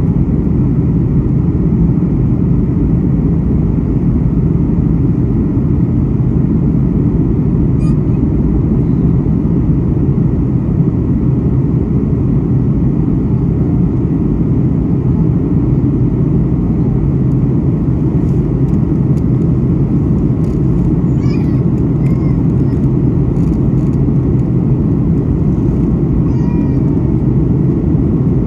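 Steady, loud low cabin noise of a Boeing 737 MAX 8 during its climb after takeoff: its CFM LEAP-1B engines and the air rushing past the fuselage, heard from inside the cabin.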